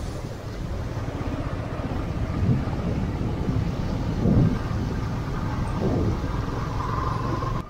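A moving vehicle's steady low rumble of road and wind noise, with wind buffeting the microphone. It drops off suddenly near the end.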